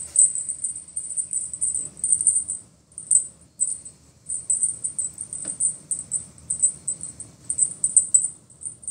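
Small jingle bell on a feather cat toy, jingling in quick, uneven bursts as the toy is shaken and dragged.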